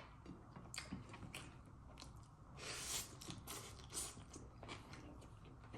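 Close-miked chewing and mouth sounds of someone eating pork adobo: frequent small wet clicks and smacks, with a louder noisy burst about three seconds in.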